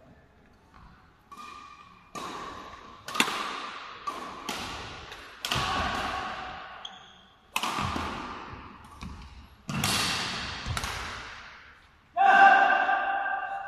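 Badminton rally: rackets striking the shuttlecock about nine times, a second or so apart, each sharp hit echoing in a large hall. Near the end a player's voice calls out loudly.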